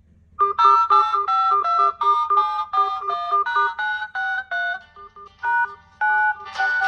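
Samsung Galaxy smartphone ringtone for an incoming call: a quick melody of short bright electronic notes over a fast repeating lower note, starting about half a second in. Near the end a second, busier layer of sound joins in over it.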